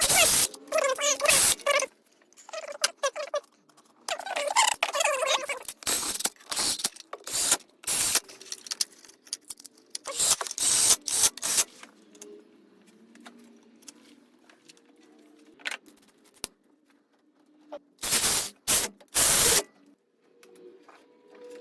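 Tools and engine parts being handled while the LS V8 is reassembled after a valve-spring repair: irregular clusters of clanks, clicks and rattles, with quieter pauses between.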